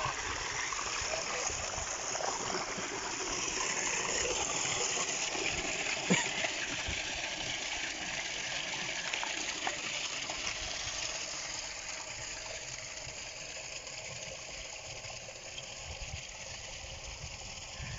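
Irrigation water gushing from a pipe outlet into a concrete box, a steady rush that fades gradually in the second half. A single sharp click about six seconds in.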